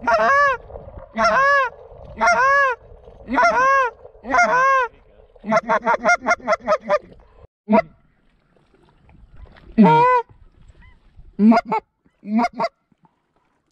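Goose honking: five loud honks about a second apart, then a quick run of about nine short clucks, then a few scattered honks after a pause.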